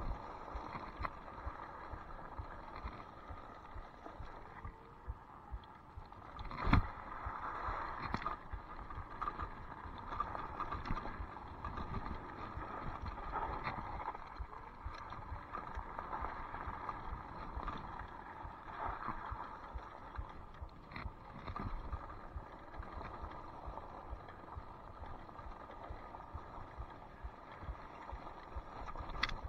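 Off-road scooter riding over a grid-paver and dirt trail: steady tyre and trail noise with frequent small clatters, and one sharp knock about seven seconds in.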